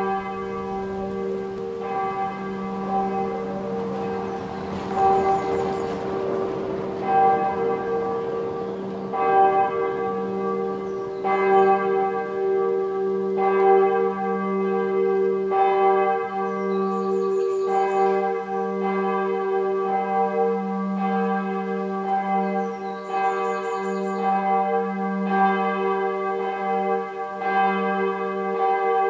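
Bell III of the Wiesenkirche in Soest, a single church bell cast in 2002, swinging and being struck by its clapper about every two seconds, each strike ringing out over a long, steady hum.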